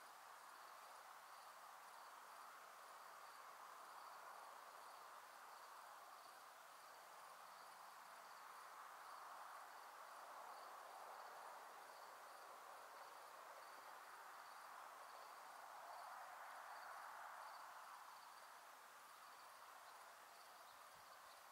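Faint evening ambience: a cricket chirping in an even, regular high pulse throughout, over a soft, steady rush that swells and fades a little.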